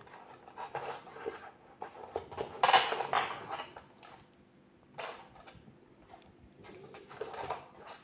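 A small screwdriver scraping and prying a Peltier cell loose from the aluminium block it is pasted to, with irregular scrapes and clicks as the cell is worked free and handled. The loudest cluster comes about three seconds in, with shorter ones about five and seven seconds in.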